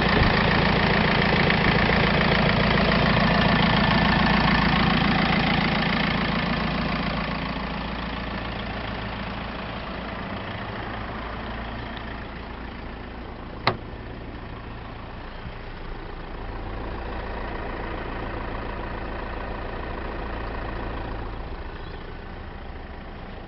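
Mitsubishi Triton 4D56 turbo diesel four-cylinder idling steadily, loud close to the engine for the first six seconds or so, then quieter for the rest. One sharp click about 14 seconds in.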